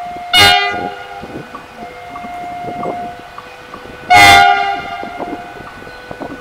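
Two short blasts of the CC 300 diesel-hydraulic locomotive's horn, about four seconds apart. Under them a two-note warning tone keeps alternating steadily.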